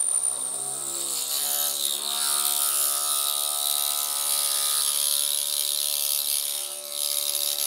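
High-speed milling spindle on a benchtop lathe driving a drill into a metal workpiece: a steady pitched hum of the cut with a high hiss, the spindle's high whine fading as it opens.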